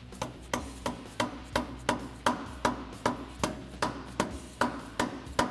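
A mallet tapping the lower end of a new lift-kit shock absorber into its axle mount: about fifteen even knocks, roughly three a second.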